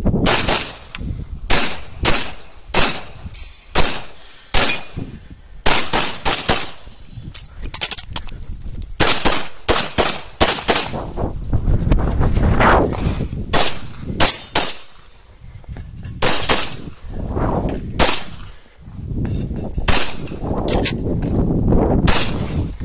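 Semi-automatic pistol shots fired in quick pairs and short strings, with pauses of a second or more between groups, as the shooter moves through an IPSC stage.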